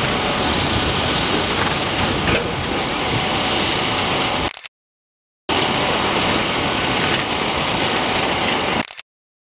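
Horse-drawn grain binder running, a steady mechanical clatter of its gears and drive. The sound cuts out abruptly for under a second about halfway through, and again near the end.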